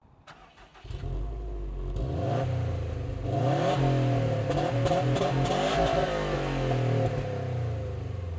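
Car engine revving, its pitch climbing and falling repeatedly. It comes in about a second in, is loudest through the middle and eases back near the end.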